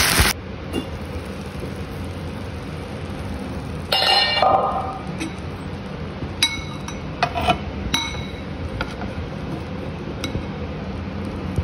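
A metal spoon clinking a few times against a non-stick frying pan of braised fish, each clink short and ringing, after a louder clatter about four seconds in. A steady low hum runs underneath.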